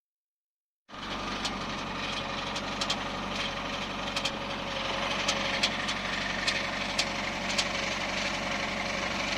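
Subaru engine idling with sharp, irregular knocks about once or twice a second from a cracked automatic-transmission drive plate (flexplate), not from the engine itself. The sound starts about a second in.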